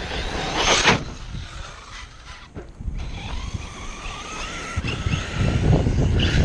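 Electric RC monster trucks driving on dirt, their brushless motors whining up and down in pitch as the throttle is worked. A short rush of noise comes about a second in, and a low rumbling builds near the end.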